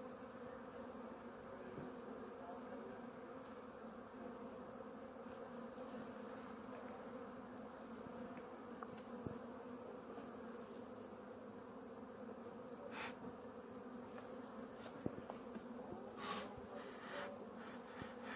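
Open colonies of Caucasian honeybees humming steadily, a low even buzz. A few short knocks and scrapes of a metal hive tool on the wooden frames come near the end.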